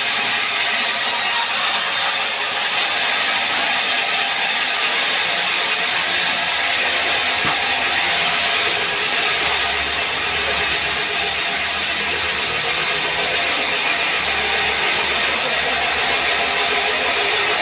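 Band sawmill running, a steady mechanical noise that does not let up.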